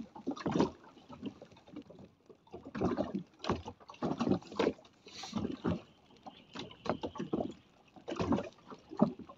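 Water slapping and splashing against the hull of a small anchored boat, in irregular bursts every second or so.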